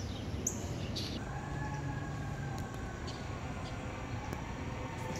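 A few short, high bird chirps in the first second. Then, from about a second in, a distant train horn sounds one long chord of several notes, drifting slowly down in pitch.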